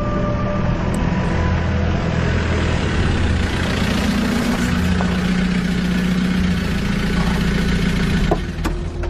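Military off-road vehicle's engine running as it drives up and pulls to a stop, growing louder as it nears. A couple of short knocks come near the end.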